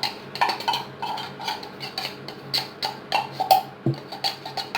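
A spoon knocking and scraping against a bowl as a buko pandan mixture with tapioca pearls is stirred: a run of short, irregular clicks and knocks, a few a second.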